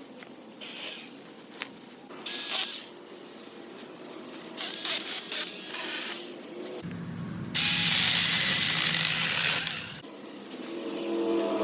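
Battery-powered 4-inch mini chainsaw running in bursts as it cuts through hedgerow branches. There are three runs, the longest about two and a half seconds near the end.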